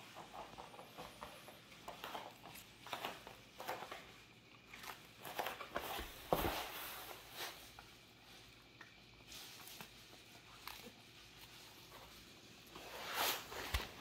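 A Jindo dog's small movements on a foam puzzle mat: faint scattered clicks and rustles with a single thump about six seconds in. Near the end comes a denser run of louder crunching as the dog chews a red leaf lettuce leaf off the floor.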